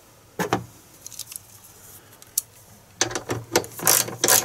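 One sharp clack about half a second in, then from about three seconds in a 3/8-inch ratchet with a half-inch socket clicking in quick repeated runs as it tightens the nut on a bracket.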